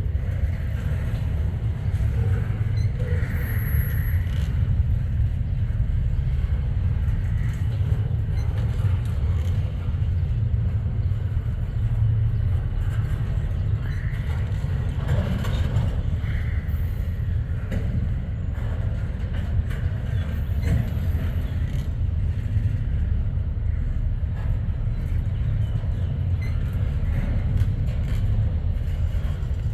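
Freight train rolling by with a steady low rumble at an even level.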